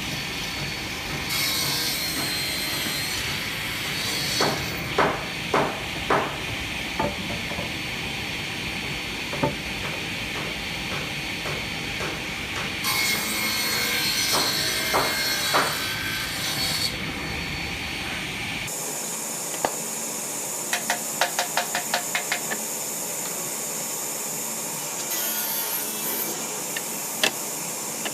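Hand woodworking on wood: scraping and rubbing strokes with scattered sharp knocks. The background changes abruptly about two-thirds through, followed by a quick run of about eight light taps.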